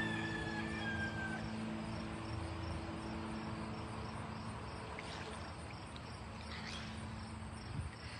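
Insects chirping in a steady rapid pulse over a hiss of open-air noise. In the first few seconds a few held low tones and a high whistle that slides down sound over it.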